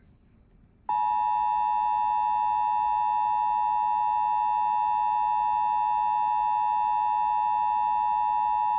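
Emergency Alert System two-tone attention signal: a steady, unwavering dual-pitch tone that starts about a second in and holds for about eight seconds before cutting off abruptly, marking the start of a weather warning broadcast.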